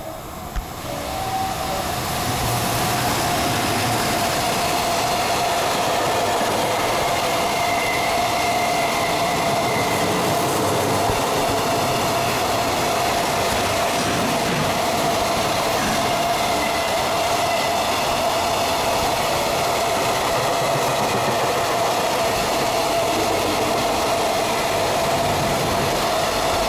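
Container freight train hauled by an EF210 electric locomotive running through a station without stopping: the sound builds over the first two seconds as the locomotive arrives, then a long, steady rumble and clatter of container wagons rolling past. A steady high hum runs through the whole passage.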